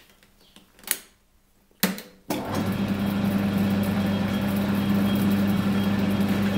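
Two sharp clicks, then a small metalworking lathe's motor and spindle start up about two seconds in and run on steadily with a strong hum, turning the chuck and the clamped aluminium workpiece.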